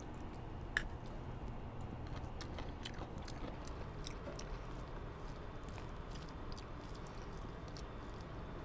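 Quiet chewing of a mouthful of food, with a few faint clicks, one more distinct about a second in, as fingers work rice on a plate, over a steady low background rumble.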